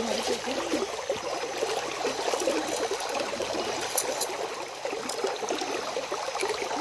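River water running and trickling steadily around a wader, with a few small clicks from handling a speargun shaft.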